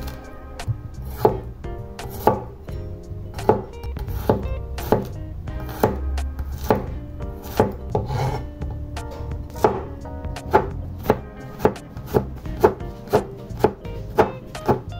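Broad kitchen knife chopping peeled garlic cloves on a wooden cutting board, one sharp knock per stroke. It goes about once a second at first and speeds up to about two strokes a second from around ten seconds in.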